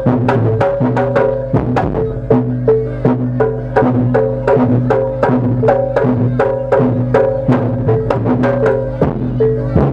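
Jaranan (kuda lumping) ensemble music: drum strokes at a steady, quick beat with tuned percussion repeating short notes in a looping pattern over a sustained low tone.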